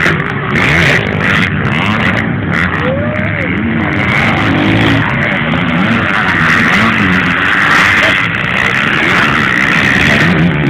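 Motocross motorcycle engines revving, their pitch rising and falling again and again over a continuous buzz.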